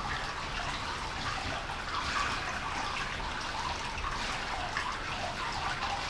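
Hot-spring water running steadily into a bath, an even splashing flow.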